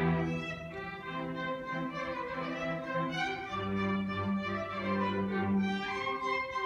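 Solo violin playing with a symphony orchestra's string accompaniment, with low cello and bass notes held for about two seconds in the middle.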